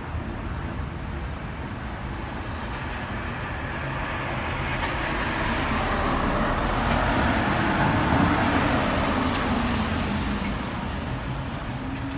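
Road traffic: a steady low rumble, with a motor vehicle driving past that grows louder to a peak about two-thirds of the way in, then fades away.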